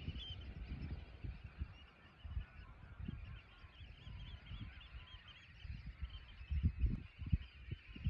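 A large flock of red knots calling all at once, a dense steady chatter of many overlapping calls. Low gusts of wind buffet the microphone underneath, strongest about seven seconds in.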